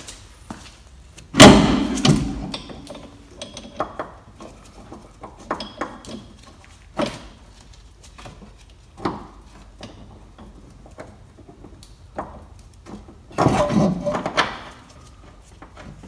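Scattered metal clanks and knocks of hand tools and a bolt being handled at a car's rear brake hub. There is one loud bang about a second and a half in, lighter clicks after it, and a burst of clatter near the end.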